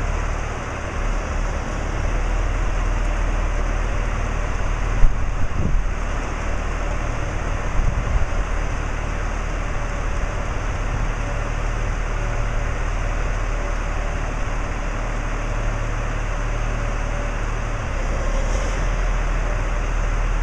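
Large marina boat-handling forklift's engine running steadily with a low hum while its raised forks hold a boat at a high rack. A couple of short clunks come about five and eight seconds in.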